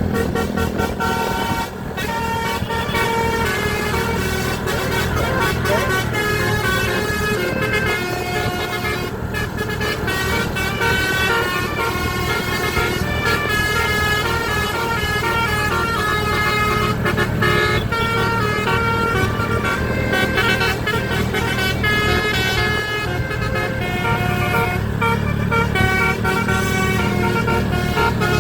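Basuri telolet bus horn, a multi-tone horn, playing a tune in short stepping notes over a steady low rumble.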